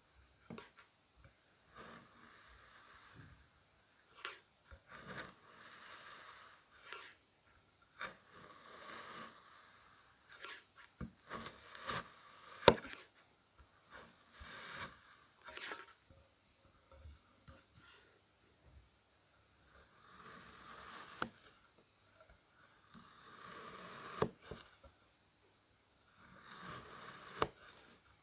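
Kinetic sand being cut and scooped: a string of soft, gritty scraping strokes, each a second or two long with short pauses between, along with sharp little clicks, one of them louder about halfway through.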